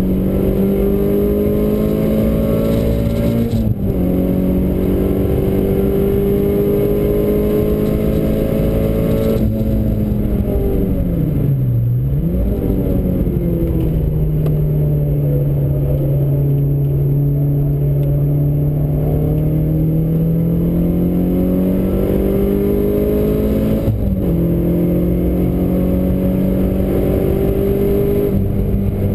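Renault Clio's engine heard from inside the cabin, driven hard on a track: it revs up through the gears with upshifts about 4 seconds in and again later, drops away under braking with a downshift around 10 to 12 seconds in, then pulls steadily back up. Road and wind noise hiss underneath.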